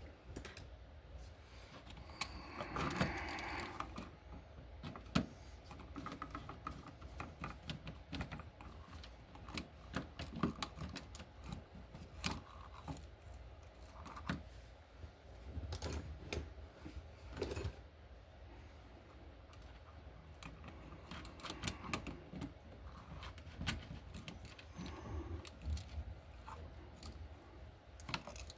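Scattered light clicks and small metallic rattles of hand tools and wires being handled at an open wall receptacle, over a low steady hum.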